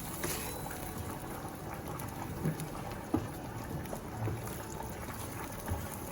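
Creamy tomato sauce with shrimp and sole fillets simmering in a pan, a steady low bubbling, with a few soft knocks about halfway through and again near the end.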